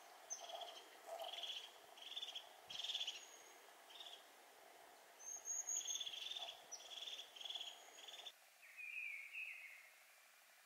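A small songbird singing in woodland, repeating short high notes, each with a lower and a higher part, about once or twice a second. The song stops a little after eight seconds in, and a brief, different call follows near the end.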